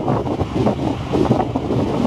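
Strong wind buffeting the microphone on a ferry's open deck: a loud, gusty rush of noise, heaviest in the low range, rising and falling unevenly.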